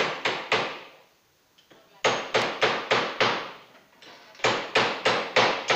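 Quick sharp blows on metal, like hammer taps, in three bursts of three to five strokes at about three a second, each stroke ringing briefly.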